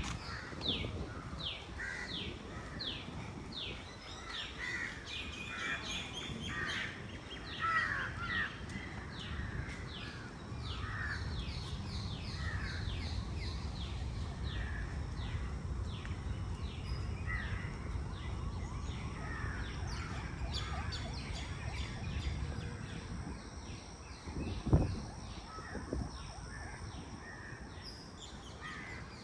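Park birds calling: a long series of short, falling high notes at about two to three a second, with crows cawing among them, over a low steady rumble. A single sharp thump stands out near the end.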